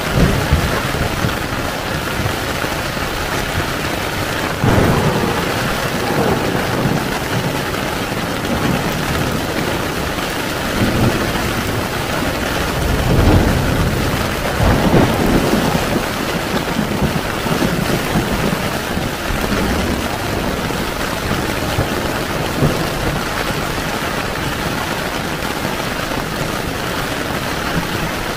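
Heavy rain falling steadily on a tent, with low rolls of thunder swelling about five seconds in and again around thirteen to fifteen seconds in.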